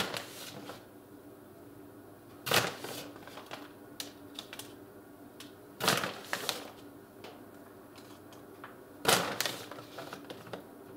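A plastic bag of grated cheddar crinkling as it is shaken out, in four short bursts a few seconds apart, with faint ticks between them.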